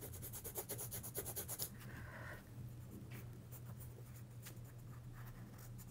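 Coloured pencil scratching on paper laid over a lightbox: faint, quick sketching strokes, dense at first and thinning out after about two and a half seconds.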